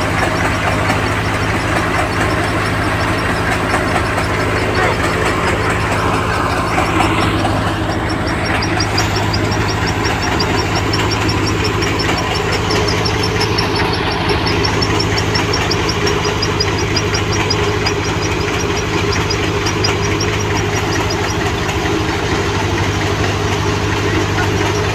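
Engine of soybean harvesting machinery running steadily at a constant speed, with a fast, even ticking above its low hum.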